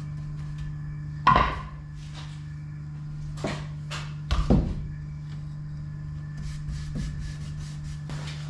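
Oak cheese boards being handled on a worktop: a few sharp wooden knocks, the loudest about a second in and a pair around four and a half seconds, then a quick run of light brush strokes on a board near the end. A steady low hum runs underneath.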